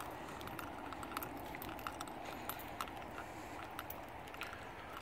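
Light, irregular clicking of footsteps on an asphalt road, about two or three steps a second, over a low steady hiss.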